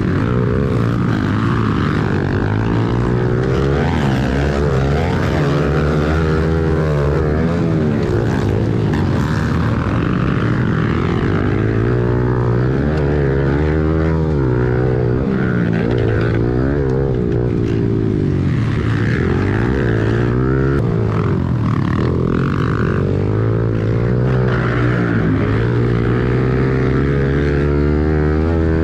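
Onboard sound of a small four-stroke pit bike engine racing, heard from the bike itself: the revs climb and drop again and again as the rider accelerates, shifts and backs off for corners.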